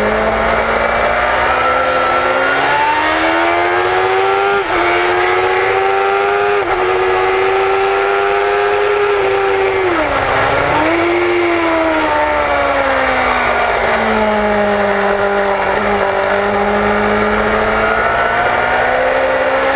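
A loud sport motorcycle's engine at track speed, heard from the onboard camera, revving up through the gears with two quick gear changes about five and seven seconds in. The revs sag and recover around ten seconds, fall away, then climb again near the end, over steady wind rush.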